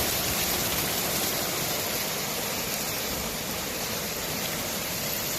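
Steady, even hiss of hail and freezing rain coming down hard in a storm.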